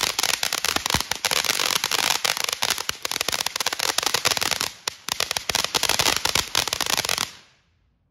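TNT Neon Force firework fountain going off: a dense, rapid crackle of popping stars over the hiss of the spark spray, with a brief lull about five seconds in. It cuts off sharply near the end as the fountain burns out.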